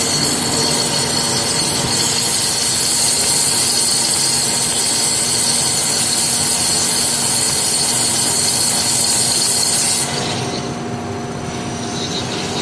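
Wire EDM machine running: a steady hiss with a constant hum and a thin high whine. The high hiss drops away about ten seconds in, leaving a quieter hum.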